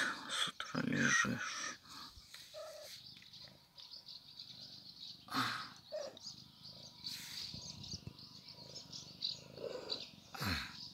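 A grey domestic cat making short calls about a second in and a longer call that falls in pitch near the end, over a steady high chirping in the background.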